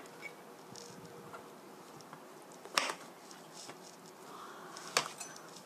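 Kitchen knife cutting the root ends off thick white elf mushroom stems on a plastic cutting board: two sharp knocks of the blade striking the board, about three seconds in and near the end, with faint handling sounds between.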